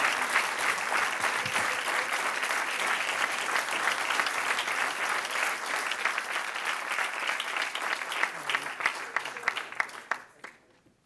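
Audience applauding: many hands clapping together, steady at first, then thinning out and dying away about ten seconds in.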